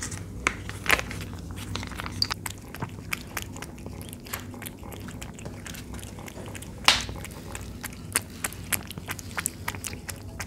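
A cat chewing and smacking on chunks of wet cat food in sauce close to the microphone: a run of quick wet clicks, with one louder click about seven seconds in.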